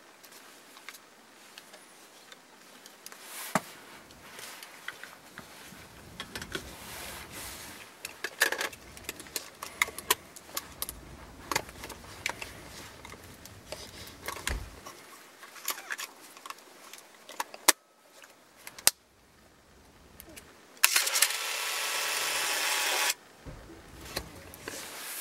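Hands handling camera gear in a padded camera bag: clicks and small rattles as a battery holder and a Sony α900 camera body are handled and fitted, with rustling of the bag. A loud rasp lasts about two seconds near the end.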